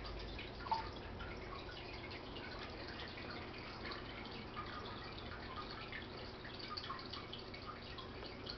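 Fish tank water trickling and bubbling, a continuous patter of small quick drips, over a steady low hum, with one louder plop under a second in.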